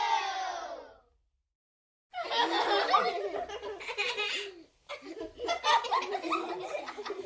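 A small studio audience of children: the end of a cheer dies away in the first second, then after a second of silence the children laugh in two separate bursts, each about two and a half seconds long.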